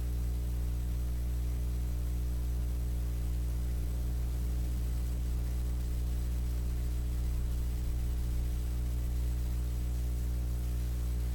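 Steady electrical mains hum with a faint hiss: a low, unchanging drone with several evenly spaced overtones, picked up by the recording setup.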